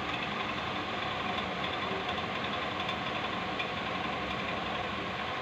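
A steady mechanical drone, like a motor running, unchanging throughout.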